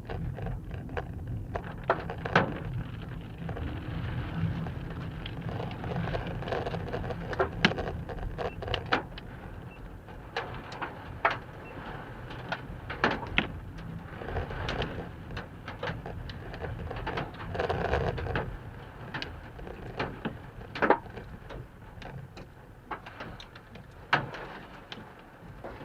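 Inside a vehicle during a storm: a steady low rumble of the car on the road, with irregular sharp taps of rain striking the windshield and roof.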